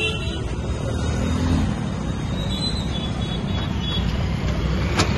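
Steady low rumble of motor vehicle engines, with a single sharp click about five seconds in.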